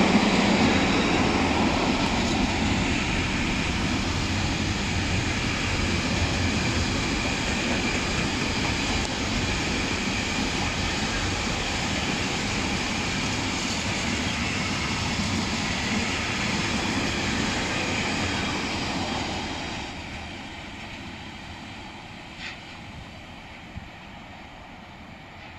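Container freight wagons rolling past on the rails, a steady rumble of wheels on track with a squealing tone in it. About twenty seconds in the last wagons go by and the sound drops sharply, then fades as the train moves away; two short clicks come near the end.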